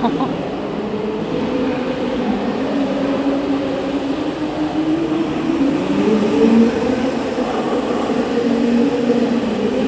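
Children's electric drift kart running, a steady whine whose pitch steps up and down as it speeds up and slows.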